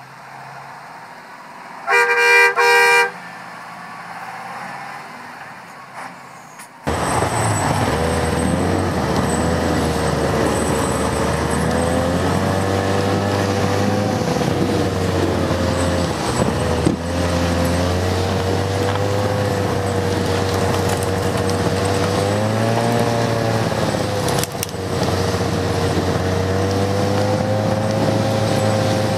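A horn sounds for about a second, two tones together. Then, from about seven seconds in, a Tatra truck's diesel engine runs hard, its pitch rising and falling as the truck drives.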